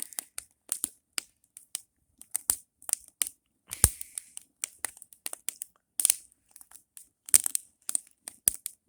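Burning wood crackling, with irregular sharp snaps and pops; the loudest pops come about four seconds in and again near the end.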